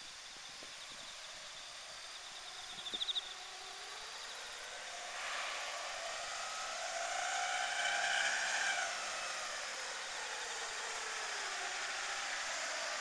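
Engine noise of something passing at a distance, swelling in from about five seconds, loudest near eight and then easing, its pitch rising and falling as it goes by. Before it comes in, faint insects chirp, with a short trill about three seconds in.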